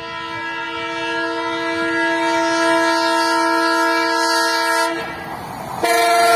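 Diesel locomotive's multi-tone air horn sounding a long steady chord as the engine approaches at speed, growing louder. It breaks off about five seconds in, leaving the rumble of the oncoming train, and a second, louder blast starts just before the end.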